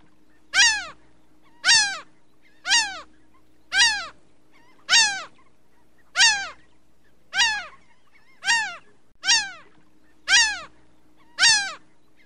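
An animal cry repeated eleven times at a steady pace of about one a second, each call short and sliding down in pitch.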